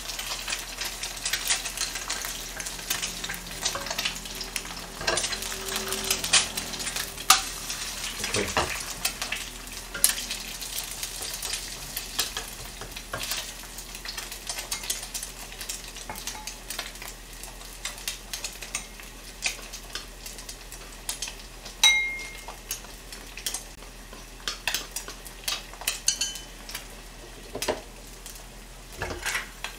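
An egg frying in oil in a nonstick pan, with a steady sizzle full of spattering pops and the scrape and tap of a wooden spatula in the pan. The sizzle is busiest in the first half and eases off later.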